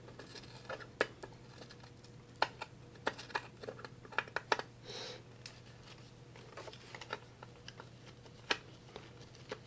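Faint, irregular small clicks and scratches of a screwdriver working through a sticker on a Pioneer DJM-400 mixer's metal top plate to turn out a hidden screw, over a faint steady low hum.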